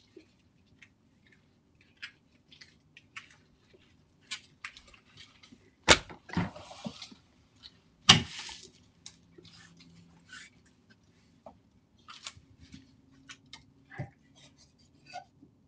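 Scattered clicks, scuffs and rustling from someone at a front door, with two sharp bangs about six and eight seconds in, each followed by a short scraping rustle.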